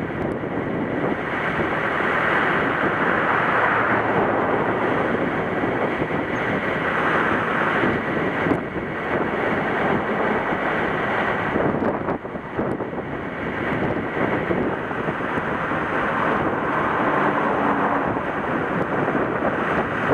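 Wind buffeting the microphone in steady gusts, with ocean surf breaking behind it.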